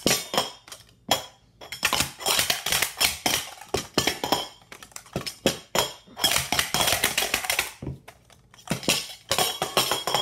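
Metal Super Stacks sport-stacking cups being stacked and unstacked at speed through a cycle: loud, rapid clacking and clinking of metal cups against each other and the mat, in quick flurries broken by short pauses.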